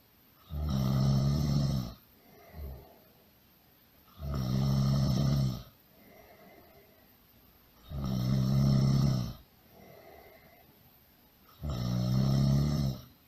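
Really loud snoring: four long snores, one about every three and a half to four seconds, each over a second long with a low buzz, and softer breaths between them.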